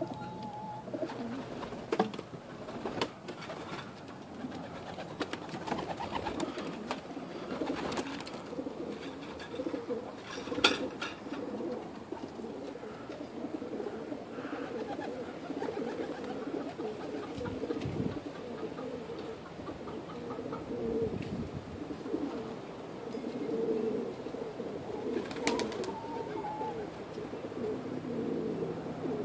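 Domestic pigeons cooing steadily, a continuous low murmur from several birds at once, with a few sharp clicks in between.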